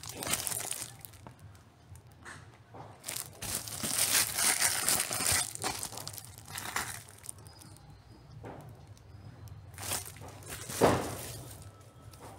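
Clear plastic sleeves crinkling and rustling in irregular bursts as vinyl records are handled, loudest about four to five seconds in, with one sharp knock near the end.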